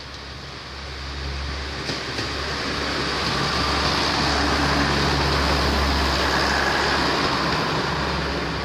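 Class 101 diesel multiple unit passing close by: its underfloor diesel engines running with a steady low hum and its wheels rumbling on the rails. It grows louder to a peak about four to seven seconds in, then starts to fade as it goes away.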